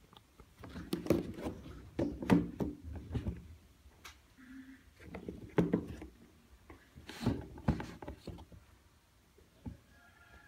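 Handling noise of an Air Jordan 11 sneaker being picked up off a cardboard shoebox and turned over in the hand: bouts of rustling, taps and light knocks of the shoe against the box.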